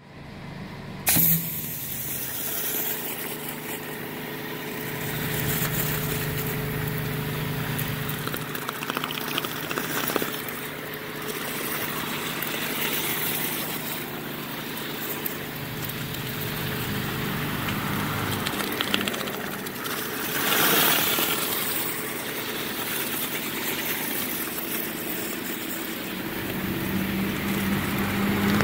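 Pressure washer running steadily, driving a rotating flat surface cleaner that sprays water onto a concrete sidewalk, with a constant hiss of water on the slab. A sharp knock about a second in, and the hiss swells for a moment around two-thirds of the way through.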